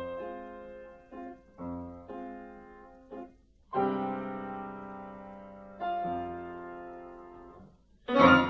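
Slow piano music: a few short notes, then two held chords, each struck and left to ring out and fade. A brief, loud, noisy burst comes just before the end.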